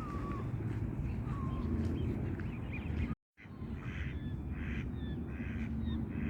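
Crow cawing about four times in a row, harsh and evenly spaced, over a steady low outdoor rumble. Before a brief cut, other birds give short falling calls.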